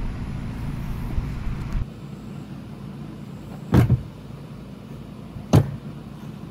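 Two sharp knocks, about two seconds apart, as an AEA Challenger air rifle is handled on a table while its stock is being removed. Before them, a steady rushing noise cuts off suddenly about two seconds in.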